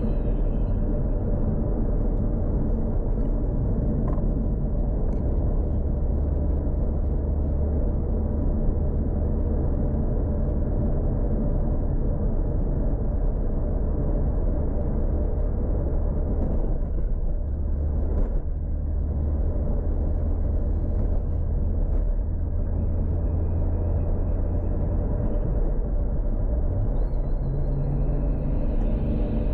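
Tuned Toyota Supra MK4's 2JZ straight-six running at low, steady revs, a deep rumble heard from inside the car. The pitch rises slightly near the end.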